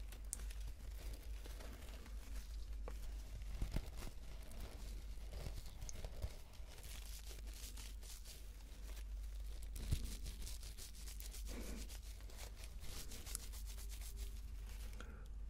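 Close-up rustling and scrunching of a frilly pink mesh cosmetic puff squeezed and rubbed between the fingers, with a few light knocks.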